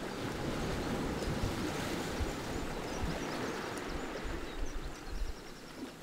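Small waves washing in over a pebble beach between rocks: a steady surf wash that eases off a little near the end.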